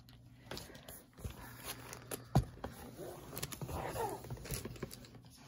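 Nail-strip set packages being handled and moved: scattered light taps and clicks, with one sharper knock about two and a half seconds in. A faint wavering pitched sound comes through in the second half.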